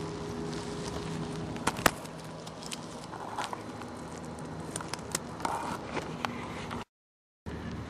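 Faint crackling of dry grass and straw with scattered sharp clicks as a pile of ten-day-old kittens shuffles about on it. The sound drops out completely for about half a second near the end.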